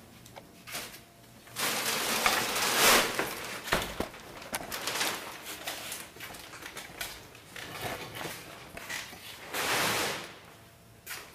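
Handling noises: rustling and scraping in two loud stretches, one a couple of seconds in and a shorter one near the end, with scattered knocks and clicks between.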